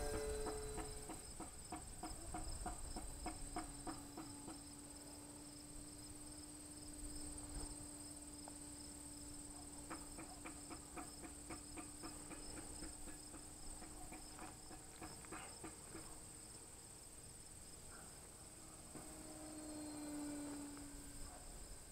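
Small RC airplane's motor and propeller humming faintly from a distance, growing louder and dropping slightly in pitch near the end as the plane passes low. A steady high buzz and bursts of rapid ticking run behind it.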